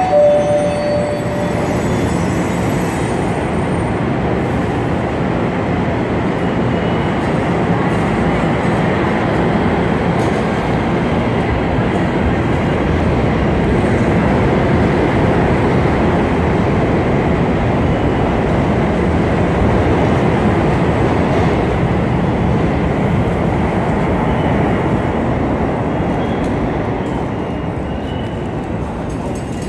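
NJ Transit double-deck passenger coaches rolling past close to the platform: a loud, steady rumble of wheels on rail and running gear. A short high tone sounds in the first second.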